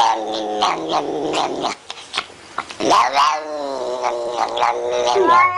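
Cat yowling: two long drawn-out caterwauls with a short break of clicks between them.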